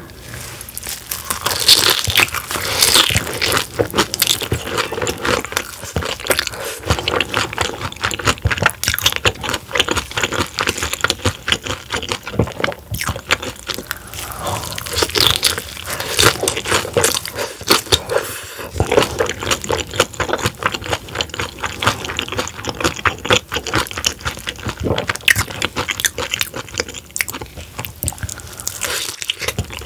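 Close-miked crunching and chewing of deep-fried, battered soft-shell crab, the crisp batter and soft shell crackling irregularly throughout.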